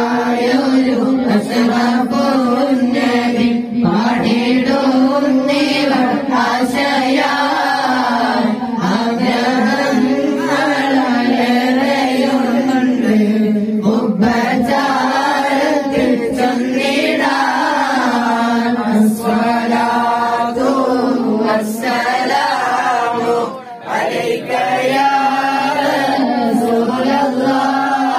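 A group of men and boys chanting Arabic mawlid verses in praise of the Prophet together, a boy leading into a handheld microphone. The melody runs on without a break except for a brief dip about three-quarters of the way through.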